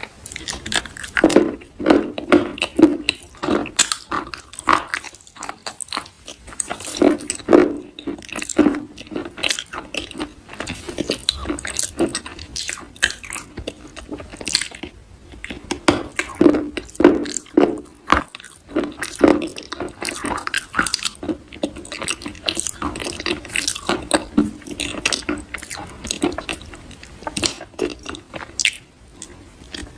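Close-miked soft crunching and chewing, a quick, irregular run of crisp crackles with repeated bites.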